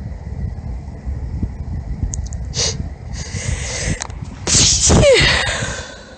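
A woman's high-pitched sneeze: a few hitching in-breaths build up, then the sneeze itself comes about four and a half seconds in, its voiced cry falling in pitch.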